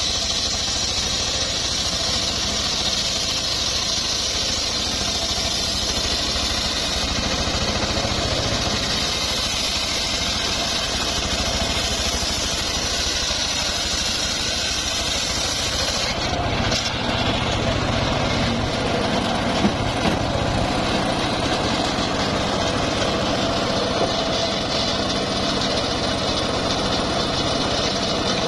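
Engine-driven homemade circular sawmill running, its large blade ripping lengthwise through a trembesi (rain tree) log, a steady loud drone with the cutting noise. A little over halfway through the sound turns deeper, with less hiss and more rumble.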